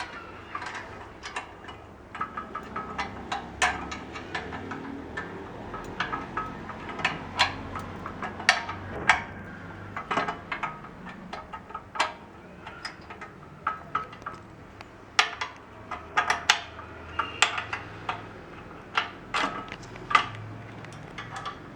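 A wrench tightening the bolts of a sanitizer dispenser stand: irregular sharp metallic clinks and taps, some ringing briefly.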